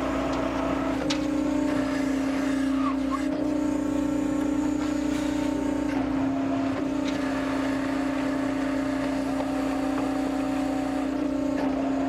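Volumetric concrete mixer running steadily, its drive making a constant hum while the mixing auger turns and the first batch of concrete starts to come through.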